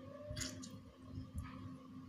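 A lime being squeezed by hand, giving a few short, soft squishes over a faint steady hum.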